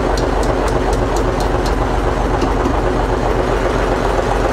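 Old marine diesel engine idling out of gear, a steady low running note with its open valve gear ticking about four times a second for the first couple of seconds.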